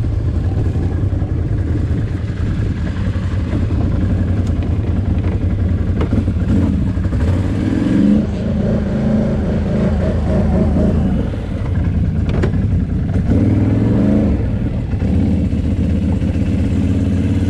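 Can-Am Renegade 800 quad's V-twin engine running at low speed, its pitch rising briefly twice as the throttle is opened, about seven and thirteen seconds in. A sharp knock about twelve seconds in.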